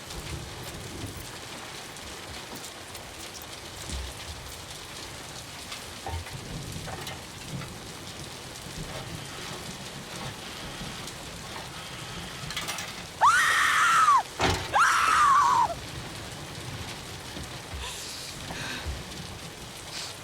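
Steady rain falling on a hard surface. About 13 seconds in come two loud pitched calls, each about a second long, rising then falling in pitch, with a low thud between them.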